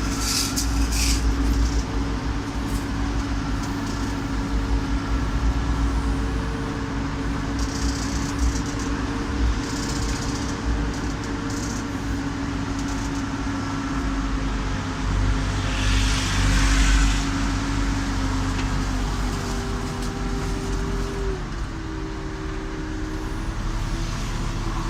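Diesel engine of a Hidromek backhoe loader running steadily at work, with a few short bursts of hiss. Its note drops slightly about twenty seconds in.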